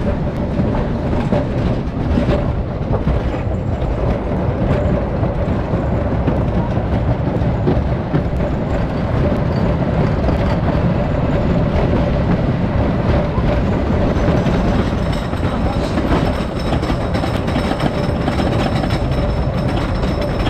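Train of a Philadelphia Toboggan Company wooden roller coaster rolling along its track, with a steady rumble and clatter of wheels. About 15 seconds in, a steadier mechanical clatter joins in as the train starts up the lift hill.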